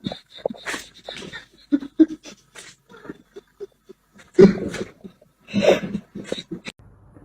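A cat making a string of short breathy sounds, the loudest two about four and a half and nearly six seconds in.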